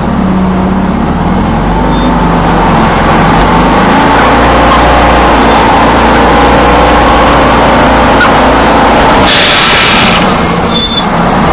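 Engine of an airsoft 'tank' vehicle running under load while it drives over rough ground, heard from on board, its pitch rising and falling. About nine seconds in comes a sharp hiss lasting about a second.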